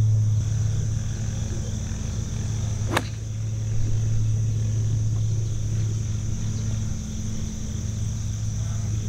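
A single sharp strike of a 56-degree wedge hitting a golf ball off the tee box, about three seconds in. Under it runs a steady low hum and a constant high insect buzz.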